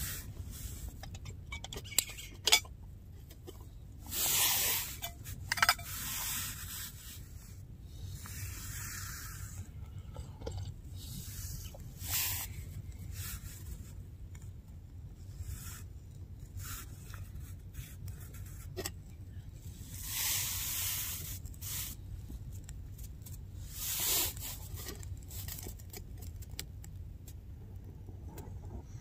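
Intermittent scraping and rubbing noises in bursts of about a second each, five of them, with scattered sharp clicks, over a steady low rumble.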